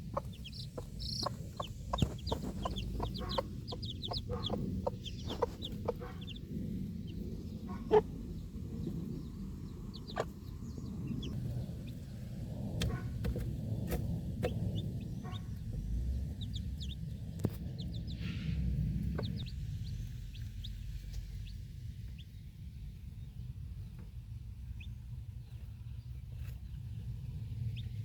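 Broody mother hen clucking softly while her baby chicks give short, high peeps, with scattered sharp clicks. A low rumble lies under it until about two-thirds of the way through.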